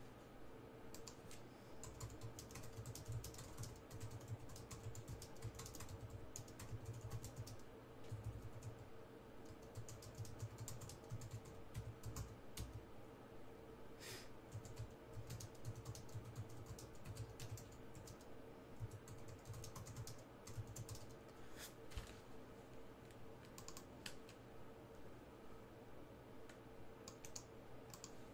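Typing on a computer keyboard: irregular runs of key clicks, over a faint steady electrical hum.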